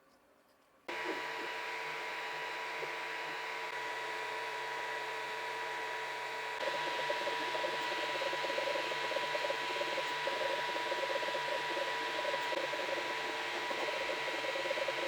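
A small electric power tool switches on about a second in and runs steadily with a high whine. About halfway through it gets louder, with a rough crackling added, as if working against the metal.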